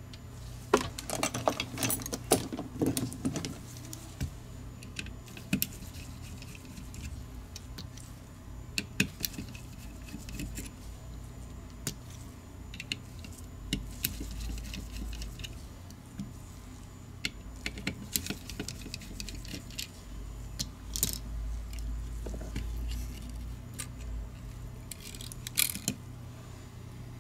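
Scattered clusters of small clicks, taps and light metallic clinks as a Logitech G502 gaming mouse is taken apart by hand: a screwdriver working screws out of its circuit board and the board being handled and lifted from the plastic shell. A steady low hum runs underneath.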